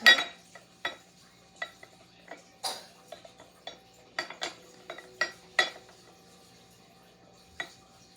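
Dishes and cutlery clinking in a kitchen: a run of about a dozen irregular, ringing clinks of a utensil against crockery. The loudest comes at the start, most fall in the first six seconds, and a last one comes near the end.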